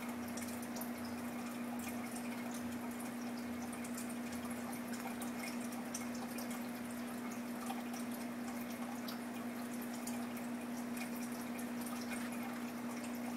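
Submerged aquarium filter running: a steady motor hum under a constant trickle, with water dripping and splashing at the surface.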